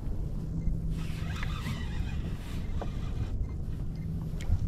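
Wind buffeting the microphone and water washing against a kayak hull on open ocean, a steady low rumble with a few faint clicks.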